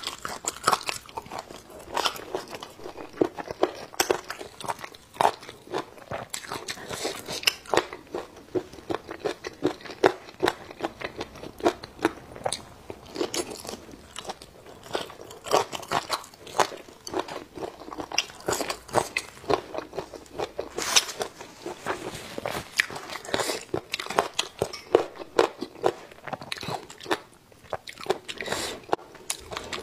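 A person chewing and biting mouthfuls of spicy braised food, with many short, irregular wet clicks and smacks, several a second.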